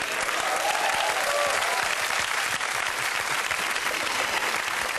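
Studio audience applauding, with a faint shout or two in the first couple of seconds.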